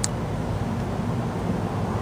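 Steady low rumble of a car, heard from inside the cabin, with one brief sharp click at the very start.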